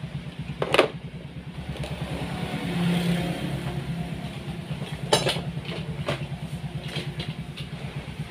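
A small engine running steadily with a rapid, even putter that swells briefly about three seconds in. Two sharp clicks, one near the start and one about five seconds in.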